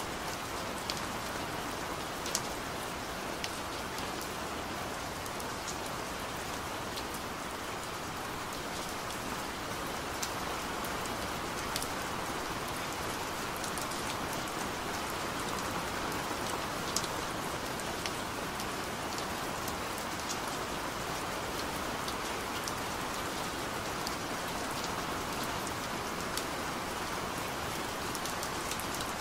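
Steady rain: an even hiss with scattered sharp ticks of drops.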